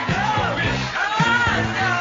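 Music: a song with a singing voice over a steady beat.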